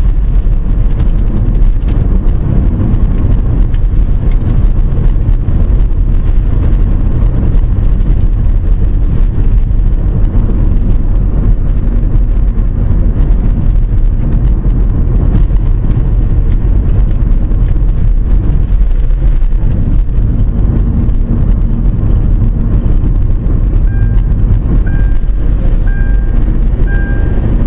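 Steady, loud low rumble of a car driving, heard from inside the cabin. Near the end a short high beep repeats about once a second.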